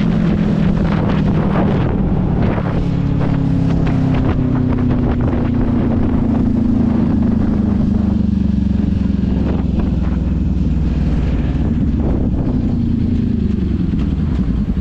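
Kawasaki sport bike's engine running at road speed from the rider's seat, its note slowly falling as the bike rolls off the throttle and slows. Wind buffets the microphone during the first few seconds.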